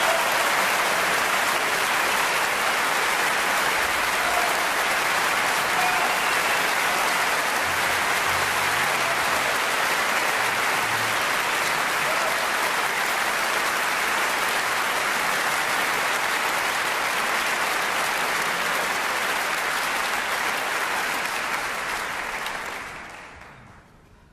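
Theatre audience applauding steadily after a ballet solo, fading out near the end.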